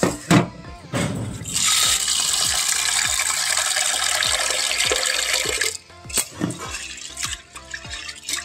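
Tap water running into an aluminium pressure cooker pot of dried split peas in a steel sink, starting about a second and a half in and stopping suddenly near six seconds, after a couple of metal knocks at the start. Then drips and light splashing as the peas are rinsed by hand.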